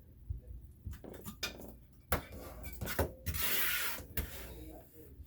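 Objects being handled: a series of knocks and clinks, with a hiss lasting about a second midway through.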